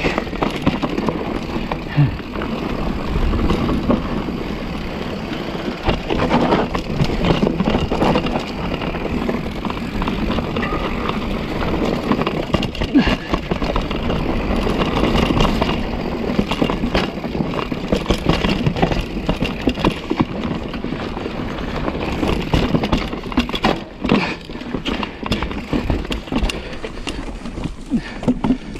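Mountain bike rolling over a rough technical singletrack, picked up by an action camera mounted on the bike or rider: a continuous rumble of tyres over dirt, rock and roots, with frequent knocks and rattles from the bike as it hits bumps.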